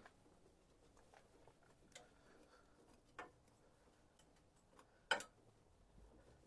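Near silence as a microfibre cloth is wiped over a motorcycle's frame and bracket, with a few light clicks and taps of hand and cloth against the metal; the sharpest click comes about five seconds in.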